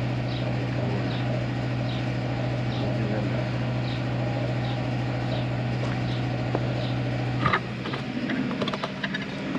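A steady low mechanical hum that cuts off with a click about seven and a half seconds in, over a faint high chirp repeating about twice a second.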